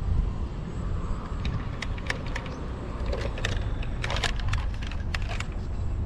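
Sharp plastic clicks and rattles of a Nerf blaster being handled and reloaded, scattered irregularly with a small cluster about four seconds in, over a steady low rumble.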